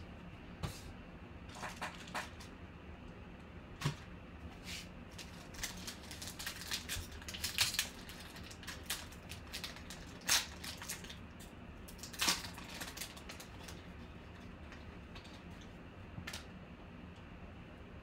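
Foil wrapper of a 2020 Panini Obsidian football card pack crinkling and tearing as it is opened by hand: scattered sharp crackles, busiest about halfway through, with the loudest pops a little after.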